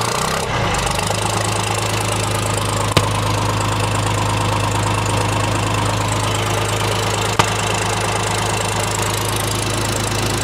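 The 201 cubic inch three-cylinder diesel of a 1978 Ford 550 backhoe running steadily just after a cold start in freezing weather. Two sharp clicks stand out, about three seconds in and again near the end.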